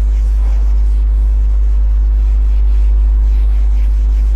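A loud, steady low hum with a few fainter steady tones above it runs throughout. Over it is the faint rubbing of a duster being wiped across a whiteboard.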